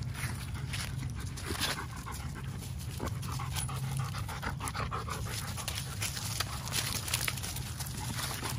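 A dog panting, with scattered rustles and crunches of dry leaves underfoot.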